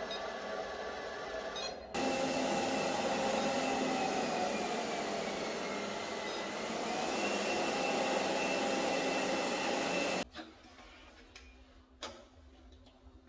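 iLife V5s Pro robot vacuum running, a steady whir of its fan and brush motors with a thin whine. It gets louder about two seconds in, the whine dips in pitch and comes back up past the middle, and the sound cuts off abruptly about ten seconds in, leaving only faint low sound.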